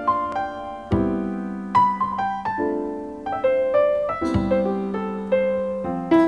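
Background music: a slow, gentle piano melody over a held bass note.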